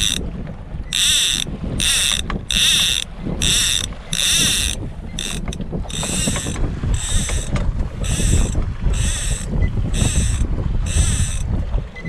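Overhead fishing reel ratcheting in short runs as line is pulled off the spool by hand, about one run every three-quarters of a second, with a short break about five seconds in. A low rumble of wind and the boat runs beneath.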